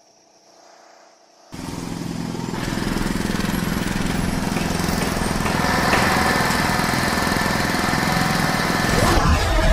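A dense din of city machinery noise, engines and power tools layered together, cutting in suddenly about a second and a half in and building louder. A steady high whine rides on top in the second half.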